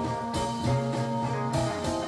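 Gibson Les Paul electric guitar played over a rock recording, with held bass notes underneath.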